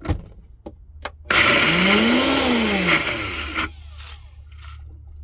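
Countertop blender running briefly on a dry load of oats and nuts, its motor pitch rising and then falling as it spins up and winds down. A few knocks come just before it starts.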